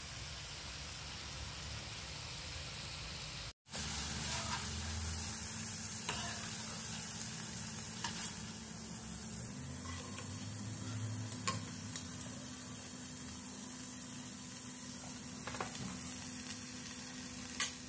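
Chicken pieces frying in shallow oil in a pan, a steady sizzle, with a few light clicks of a metal slotted skimmer and strainer as the pieces are lifted out.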